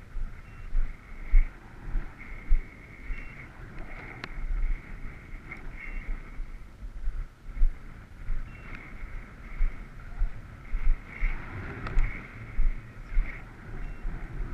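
Wind buffeting the microphone in irregular gusts, the loudest sound, over the faint steady drone of a radio-controlled model Cessna 182's motor and propeller, which swells and fades as the plane flies.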